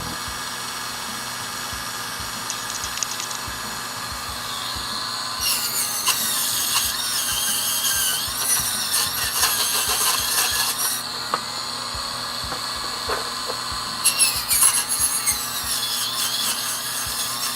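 Small high-speed rotary tool sanding a carved wooden chess piece: a steady high whine, with a wavering squeal from about five to eleven seconds in and again from about fourteen seconds on as the tool bears into the wood, smoothing parting lines and raised fibres.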